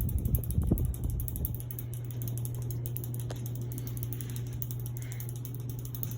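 Hunter Savoy ceiling fan running on high: a steady motor hum with a fast, even ticking. In the first second or so, air from the blades buffets the microphone.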